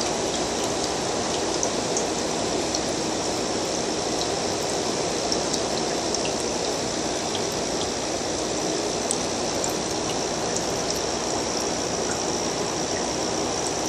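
Steady trickling water in an aquarium tank, with scattered faint high ticks and a faint steady high whine under it.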